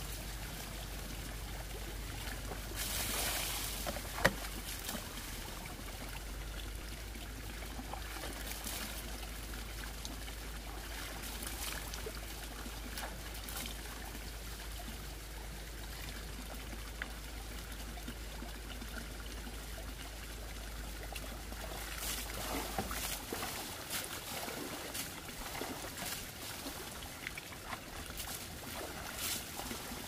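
Water trickling from a pipe into a full plastic bucket, with splashing as hands are washed under the stream, louder about three seconds in and again from about twenty-two seconds. A single sharp click about four seconds in.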